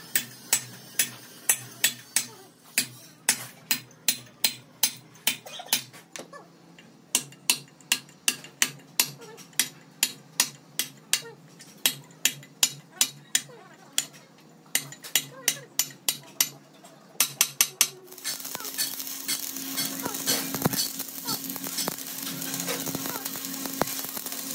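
Repeated hammer blows on steel, about two to three a second and speeding up toward the end, during work on a truck rear axle housing. About three-quarters of the way through the hammering stops and a steady crackling hiss with a low hum takes over: electric arc welding.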